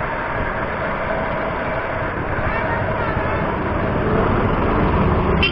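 Steady rushing noise of a moving bicycle ride, wind on the camera microphone and tyres on the road, growing a little louder toward the end, with a brief high squeak near the end.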